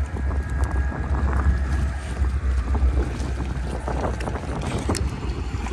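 Wind buffeting the microphone: a fluctuating low rumble that eases about three seconds in, with a few faint clicks near the end.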